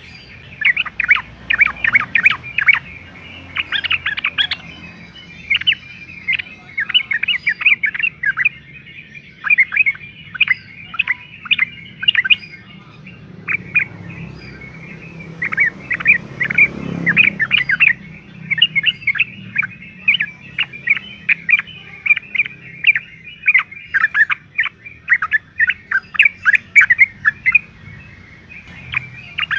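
Sooty-headed bulbul (trucukan) singing in loud, rapid runs of chattering chirps, broken by short pauses.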